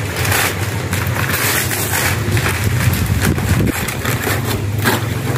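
Gift wrapping paper and tissue paper rustling in short repeated bursts as a present is unwrapped and its box opened, over a steady low hum.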